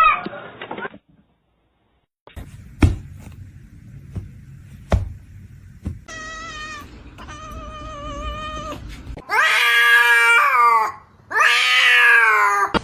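Domestic cat meowing and yowling: a few knocks, then one long, steady, drawn-out call, followed by two loud, long yowls near the end.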